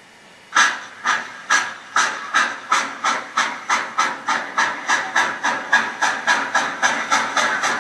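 Steam locomotive chuffing as it gets under way, starting about half a second in; the exhaust beats speed up from about two a second to nearly four.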